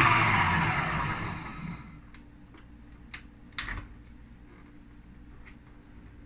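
Electric tilt-head stand mixer's motor and beater running, fading away over the first two seconds as it is switched off and winds down. Then two sharp clicks as the mixer head is unlocked and tilted up.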